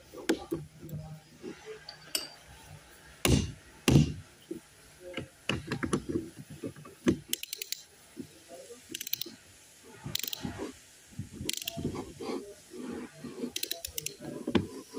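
Hand tools working on a Toyota Land Cruiser power steering box: scattered metal clinks and knocks, with two loud knocks about three and four seconds in, and several short runs of rapid ratchet-like clicking.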